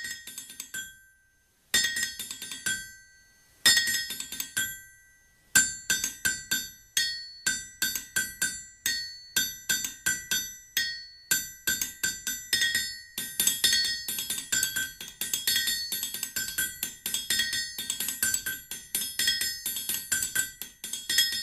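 Outro music of high, ringing struck notes: three single notes a couple of seconds apart, then a quick, steady run of notes.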